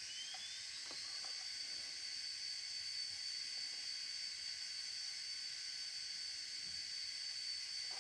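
Sound-equipped model steam locomotive standing at idle: a whine rises in pitch over the first second and then holds as a steady high tone, the turbo-generator sound of its headlight coming on, over a steady steam hiss. A few faint clicks sound in the first couple of seconds.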